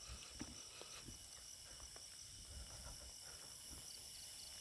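Crickets and other insects trilling steadily in a high tone, with a faster pulsing chirp joining near the end. Faint, irregular soft footsteps through grass underneath.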